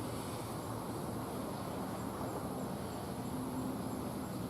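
Steady outdoor insect chorus: a high, even buzz with a faint chirp repeating about three times a second.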